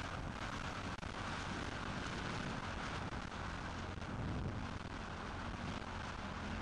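Dirt bike engine running under load on a sandy track, heard dull and muffled under a steady rush of wind noise, its pitch rising and falling briefly about four seconds in.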